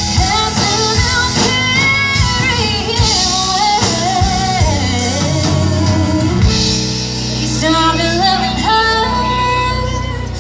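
Live band playing a song, with a lead vocal held over electric guitars, bass, keyboard and drum kit, amplified through the stage PA.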